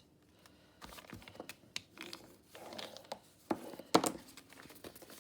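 Sheets of paper being handled and folded in half: soft rustling with scattered light taps and clicks, the sharpest click about four seconds in.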